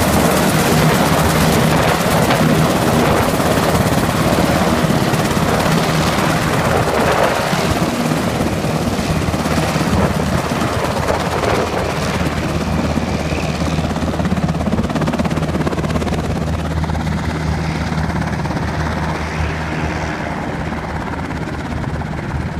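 Medevac helicopter taxiing, its rotor and engine running steadily with a low hum under a dense roar. It grows gradually fainter over the second half.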